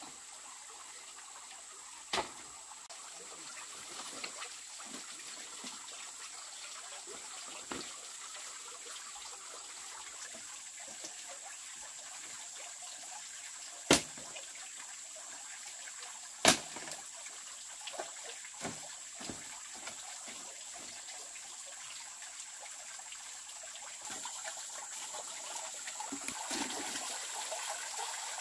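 Water trickling steadily, louder near the end, broken by three sharp knocks: one early, then two close together about halfway through. A thin, steady high whine runs underneath.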